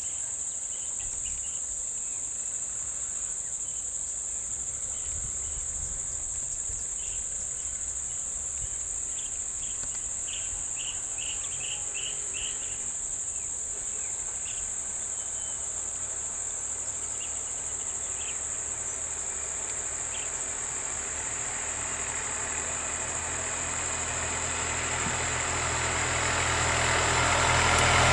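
Steady high-pitched insect drone with a few short chirps. Over the last few seconds a motor vehicle's engine approaches and grows louder.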